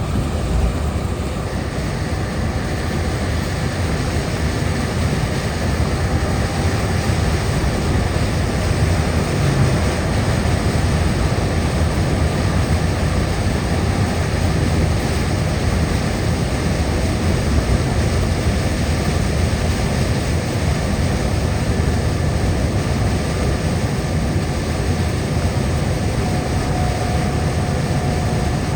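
Car driving on a wet highway: steady road and tyre noise with a low rumble.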